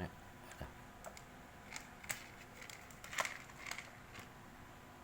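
Scattered light taps and clicks of a bird pecking at its food, irregular, with the loudest tap about three seconds in.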